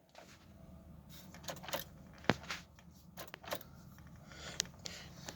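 Faint, scattered handling clicks and light rattles inside a vehicle's cab: about half a dozen sharp ticks, the strongest a little past two seconds in.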